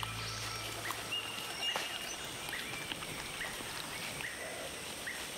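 Rainforest ambience: a short high chirp repeats at regular spacing, a little more than once a second, over a faint steady high whine, with a few soft clicks.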